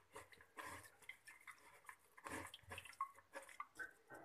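Faint, irregular wet squelching and dripping as bare hands squeeze ground finger millet (ragi) pulp in a plastic strainer, pressing out the ragi milk, with two stronger squishes about half a second and two and a half seconds in.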